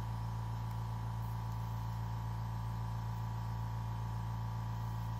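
Steady electric hum of the milling machine's motor running without cutting, an even low drone with a faint higher whine that does not change.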